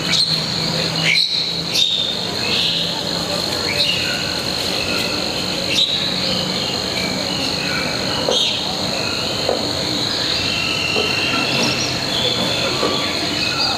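Outdoor ambience: a steady high insect drone, typical of crickets or cicadas, with many short bird chirps scattered over it.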